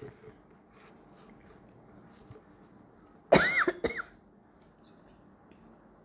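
A person coughing, two quick coughs a little past halfway, over faint room hiss.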